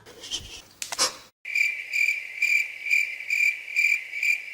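High insect chirping that pulses evenly about twice a second and begins about a second and a half in. A brief rustle and a sharp click come before it.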